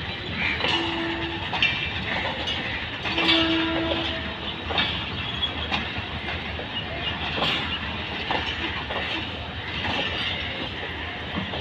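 Pakistan Railways passenger coaches of the Tezgam Express rolling slowly past, their wheels clattering and clicking over the rail joints. Two brief steady tones sound near the start and about three seconds in.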